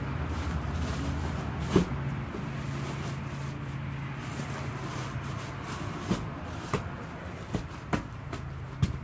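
Humvee's diesel V8 idling steadily, with sharp knocks about two seconds in and several more in the last few seconds.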